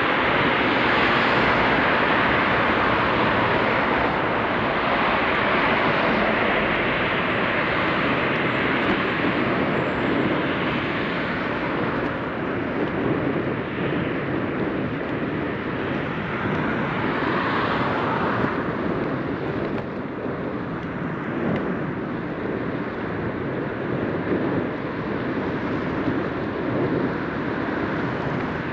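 Steady rushing noise of riding a bicycle along a street-side cycle path: wind on the bike-mounted camera's microphone mixed with road traffic, swelling and easing every few seconds.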